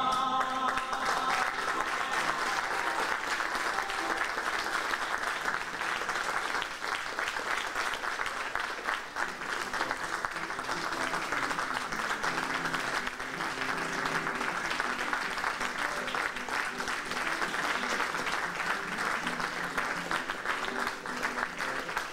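Banquet audience applauding steadily for a long stretch at the end of a stage performance.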